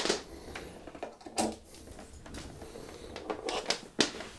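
Handling noises: a few sharp clicks and knocks over light rustling, one at the start, one about a second and a half in, and one about four seconds in.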